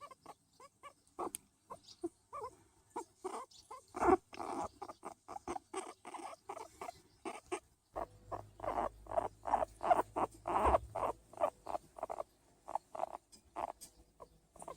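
Skinny pig (hairless guinea pig) making a long run of short calls, several a second, as it is stroked: contented sounds. A low rumble runs under the calls for a few seconds midway.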